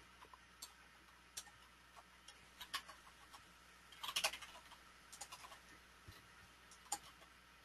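Faint keystrokes on a computer keyboard: scattered soft clicks, with a quick run of them about four seconds in.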